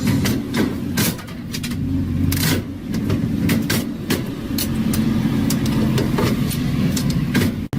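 Vending machine humming steadily, with clicks and knocks scattered through. The sound cuts out for an instant near the end.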